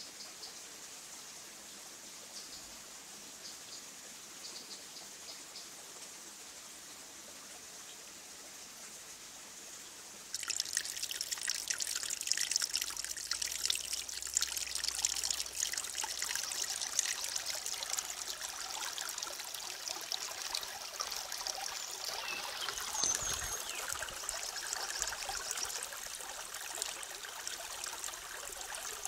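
Faint hiss at first; about a third of the way in, a small stream trickling and splashing over rocks cuts in abruptly and runs on steadily.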